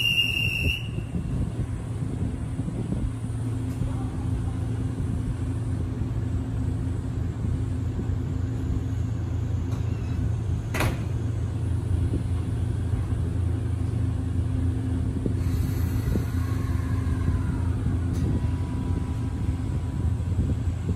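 E261 series Saphir Odoriko express train standing at the platform with a steady low rumble and hum from its on-board equipment. A short beep sounds at the start, a sharp clank comes about eleven seconds in, and a brief hiss follows around fifteen seconds in.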